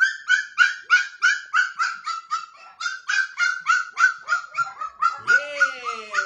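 A puppy yelping over and over in short high-pitched cries, about three a second, the distress crying of a young pup. About five seconds in, a lower, drawn-out whine rises and then falls.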